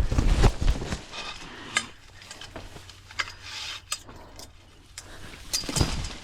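Steel offset-jaw foothold trap and its chain clinking and rattling as a caught house cat is freed from it. There are heavy scuffling thumps in the first second and a louder scuffle near the end.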